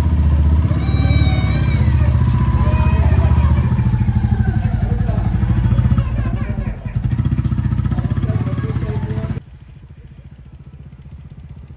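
Motorcycle engine running close by with a steady low beat, revved slightly as the bike pulls away. About nine seconds in it cuts to a much fainter engine sound from further off.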